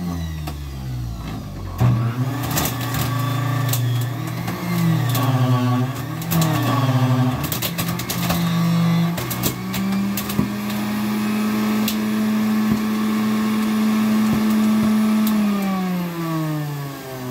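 Electric juicer motor running while kale is pushed through it, its pitch dipping and recovering several times under the load, then holding steadier and sagging again near the end, with scattered sharp cracks and clatters from the leaves and stems going in.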